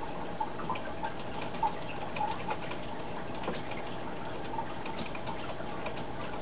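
Aquarium water sounds: irregular small plinks and bubbling, a few a second, over a steady hiss with a constant thin high whine.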